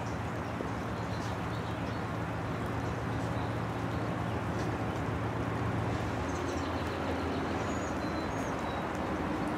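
A steady low engine hum with a hiss, its pitch shifting about six seconds in. A few short, high bird chirps near the end.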